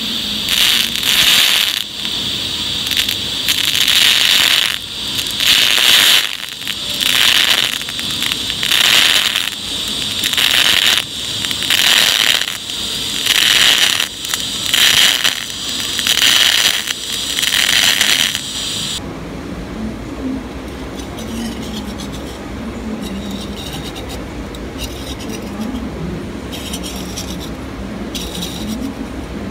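TIG welding arc on brass: a loud crackling hiss that swells and drops about once a second. About two-thirds of the way through it cuts off suddenly, leaving a steady low hum.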